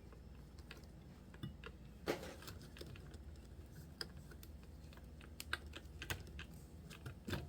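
Scattered faint clicks and taps from a hex driver and small plastic and metal parts being handled while a screw is worked out of an RC truck's wheel hub. The louder taps come about two seconds in and near the end.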